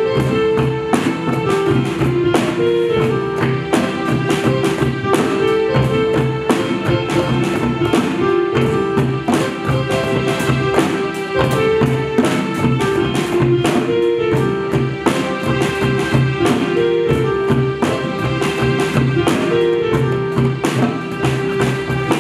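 Live percussion-led ensemble music, with congas, djembe, cajón, drum kit and acoustic guitar, playing a fast, dense drum rhythm under a repeating sustained melody.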